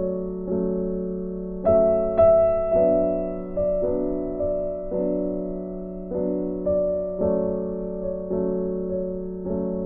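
Background instrumental music: slow, gentle notes struck about every half second over held chords, each note fading after it sounds.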